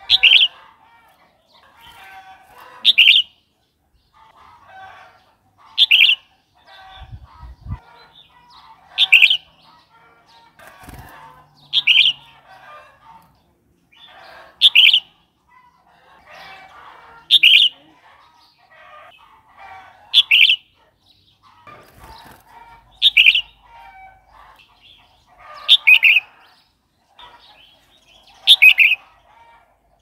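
Red-whiskered bulbul singing: a short, loud, high phrase repeated about every three seconds, eleven times.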